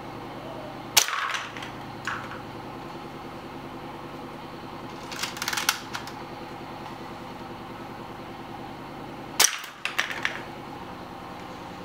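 Toy gun shots in short groups: a sharp bang about a second in with a lighter one a second later, a quick rattling burst around the middle, and another bang followed by a short rattle near the end, over a steady low hum.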